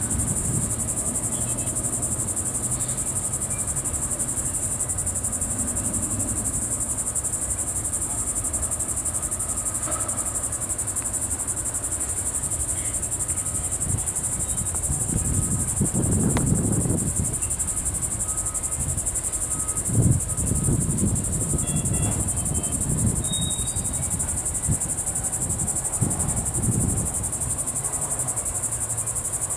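Steady high-pitched buzz of insects, with low rumbling and a few dull thumps beneath it, the loudest about 16 and 20 seconds in, from the slow freight train's cars rolling away.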